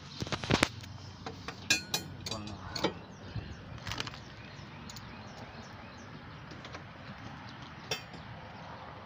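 A few sharp metallic clinks and knocks from tools and step-bar hardware being handled, several close together in the first two seconds, then single ones spread out, with a faint steady background between them.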